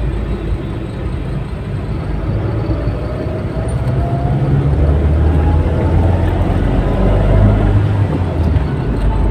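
Car running along a town street, heard from inside the cabin: a steady low engine and road rumble, with the engine note rising gradually and growing louder about halfway through as the car picks up speed.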